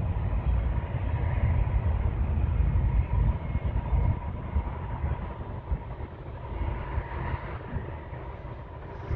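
Distant BNSF diesel-hauled freight train: a low rumble from the locomotives and cars, with a faint steady whine above it. The rumble eases after about four seconds.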